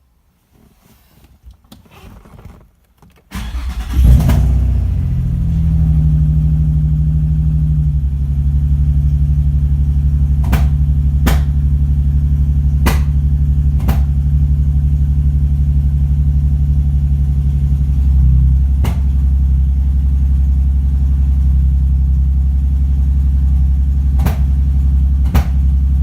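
Nissan 350Z's 3.5-litre V6 cranks and starts about three seconds in, then idles steadily while sharp pops break out at irregular intervals, about seven of them. The popping was traced to faulty newly fitted ignition coils.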